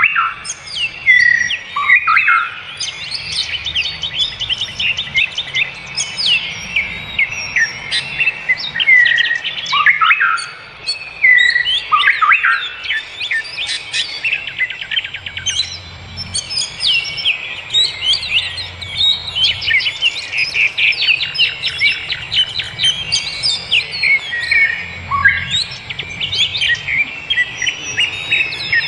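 Several forest birds singing and chirping at once, a dense chorus of rapid trills, short chirps and downward-sweeping whistles that never lets up.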